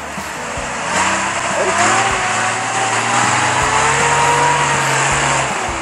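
Lifted off-road pickup truck's engine revving hard under load in the mud. The pitch climbs about a second and a half in, is held high, and drops off near the end.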